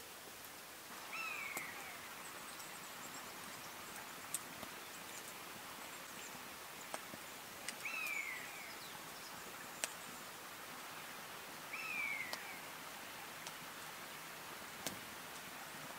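A bird calling three times, a few seconds apart. Each call is a short, high, down-slurred whistle over steady background hiss, with a few faint sharp ticks in between.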